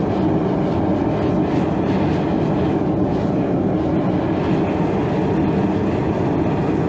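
Propane furnace burner running at full heat: a loud, steady rushing noise with a low rumble, unchanging throughout.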